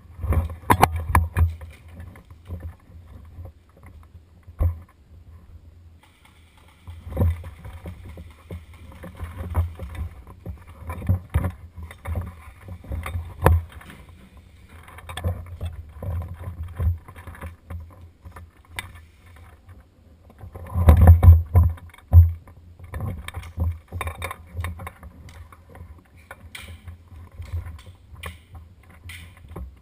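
Irregular knocks, thumps and rustling of a player's gear and movement close to the microphone, with a loud cluster of thumps about two thirds of the way through.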